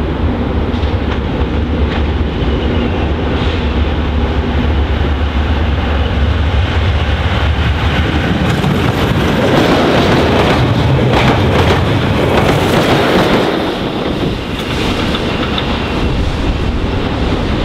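Two Class 20 diesel locomotives running as they approach, with a strong low engine rumble, then passing close by about nine seconds in, followed by the louder rush of the railhead treatment train's wagons going past. The noise eases off after about fourteen seconds as the train moves away.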